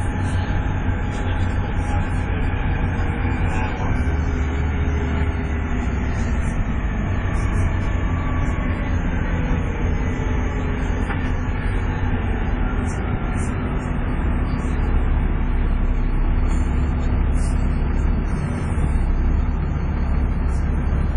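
The straight-six engine of a Volvo B7TL double-decker bus pulling hard under load, heard from inside the bus: a loud, steady low drone with a faint whine that rises and falls in pitch. It swells a little about fifteen seconds in and again near the end.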